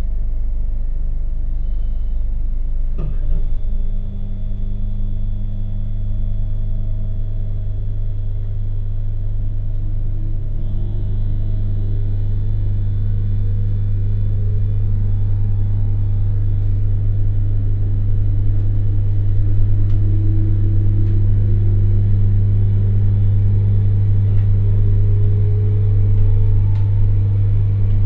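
JR Hokkaido 721 series EMU motor car (MoHa 721) pulling away under power, heard onboard: a loud, steady low hum from the car's 50 Hz AC equipment, which the uploader takes for transformer hum, under the whine of its thyristor phase-controlled MT61 DC traction motors and gears rising in pitch as the train gathers speed from about ten seconds in. A sharp click comes about three seconds in.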